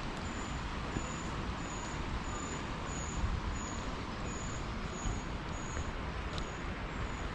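Small waterfall's water rushing steadily. A faint high-pitched chirp repeats about twice a second over it.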